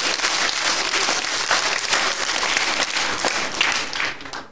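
Live theatre audience applauding, a dense patter of many hands clapping that dies away near the end.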